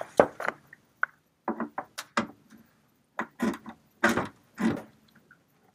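Steel ram of a new Teleflex/SeaStar steering cable being worked into the greased tilt tube of a Honda outboard: a string of irregular metallic knocks and scrapes as the shaft is pushed in.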